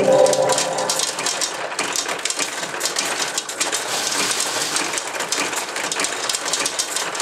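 Pachinko machine's small steel balls clattering, a dense rain-like patter of tiny metallic clicks that runs on evenly.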